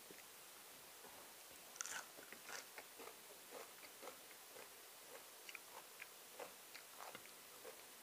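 Faint chewing and mouth sounds of a person eating, with small clicks scattered through, the sharpest about two seconds in.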